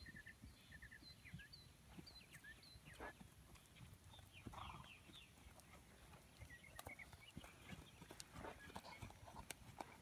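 Faint, soft hoofbeats of a ridden horse moving over sand arena footing, with runs of short high chirps in the first few seconds and again about two-thirds of the way through.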